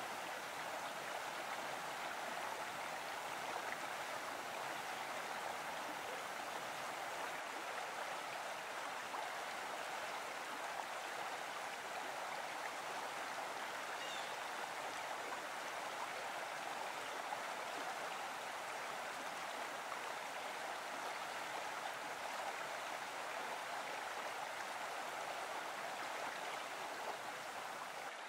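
Small mountain stream running over rocks, a steady rush of flowing water.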